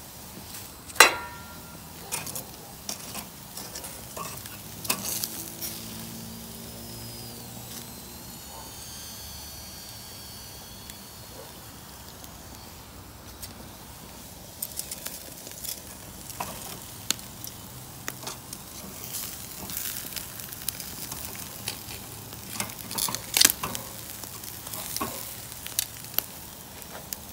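Meat sizzling over a charcoal kettle grill, with metal tongs clicking and scraping against the grate as the pieces are turned. The sharpest click comes about a second in, and another run of clicks comes near the end.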